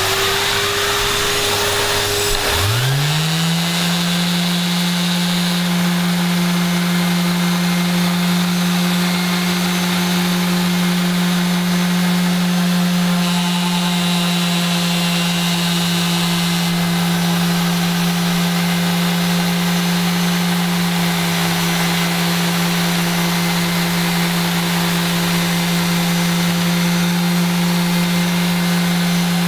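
Bosch random orbital sander with a 120-grit Velcro disc sanding paint off a narrowboat's steel cabin side, with a vacuum hose drawing off the dust. One motor starts right away and a second whirs up in pitch about two and a half seconds in, then both run steadily.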